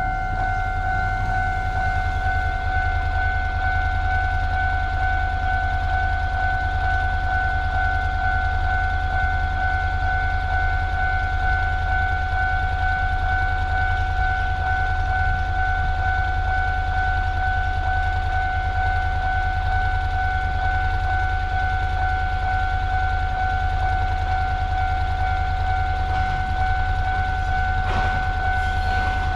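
Japanese level crossing's electronic warning bell ringing without a break over a low hum. Near the end, knocks and clacks of an arriving train begin.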